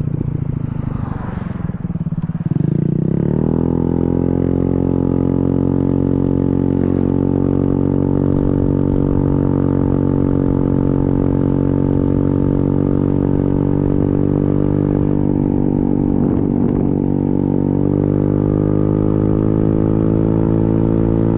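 Motorcycle engine heard from the bike. It falls in pitch as the bike slows, rises sharply about two seconds in as it accelerates away, then holds a steady cruising note.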